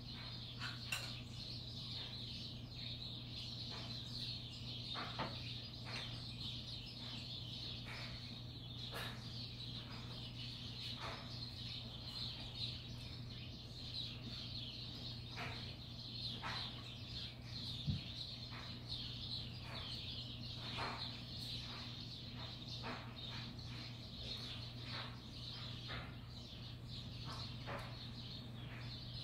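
Sparrows at a seed feeder chirping: many short, scattered chirps over a steady high chatter, with a steady low hum underneath. A single low knock sounds a little past the middle.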